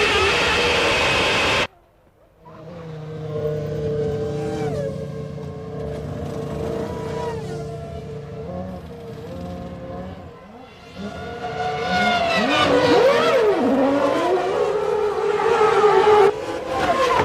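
1995 Formula One cars' 3-litre engines at race speed, with a steady high engine note. The sound cuts off abruptly just under two seconds in, then picks up again, and later several cars go by with overlapping engine notes rising and falling in pitch.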